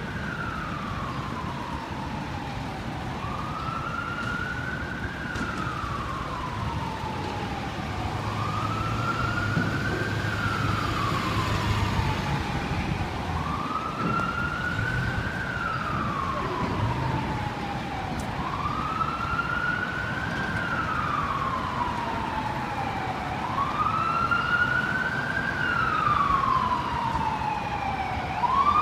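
Emergency-vehicle siren on a slow wail, rising and falling about every three seconds, over the rumble of street traffic. Near the end a second, higher siren joins in.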